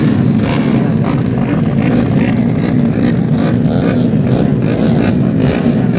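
Tuned four-stroke 130 cc underbone race motorcycles running hard on the circuit. The engine note is loud and continuous, its pitch wavering up and down.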